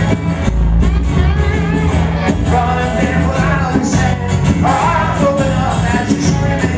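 Live band music: a singer with strummed acoustic guitar, electric bass, lap steel slide guitar and drums playing a rock song.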